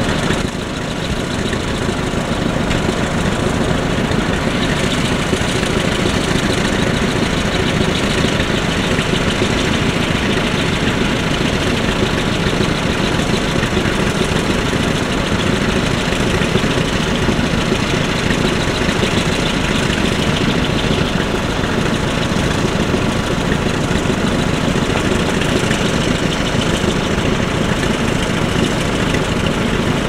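Several vintage tractor engines idling together in a steady, even din.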